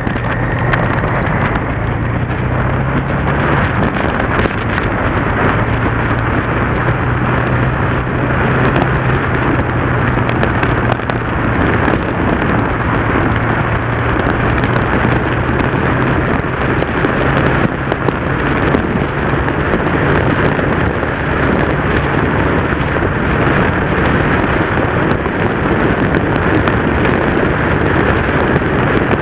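Yamaha TDM parallel-twin motorcycle engine running at a steady cruise, its pitch shifting slightly now and then, under heavy wind rush on the microphone.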